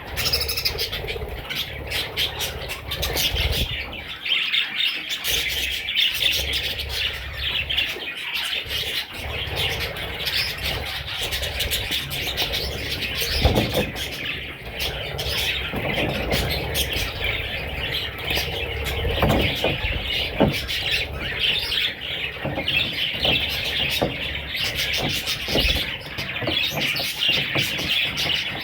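Pet budgerigars chattering and warbling continuously, a dense stream of high chirps, with a few brief knocks, the loudest about halfway through.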